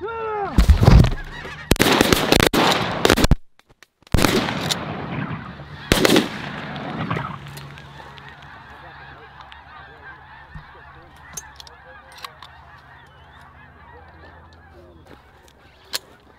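A volley of about six shotgun blasts over the first six seconds, amid a large flock of snow geese honking and calling. The dense goose chorus carries on after the shooting and slowly fades.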